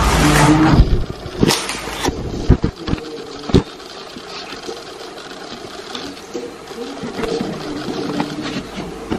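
Gift wrapping paper being torn and crinkled by hand, with a few sharp crackles in the first few seconds, over a faint low drone in the background. A voice is heard briefly at the start.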